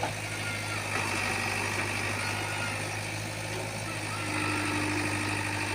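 Diesel engine of a JCB backhoe loader running steadily, a continuous low drone.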